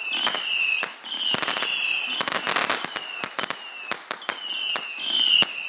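Consumer fireworks going off in quick succession: a rapid string of sharp cracks and pops mixed with repeated high whistles, each sliding slightly down in pitch.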